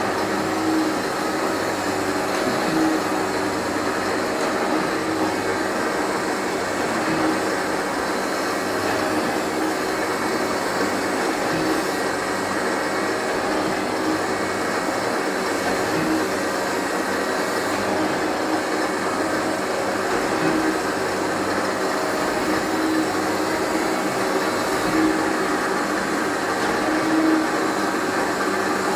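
3L722V surface grinding machine running: a steady machine hum with a constant hiss, and a low tone that swells a little every few seconds.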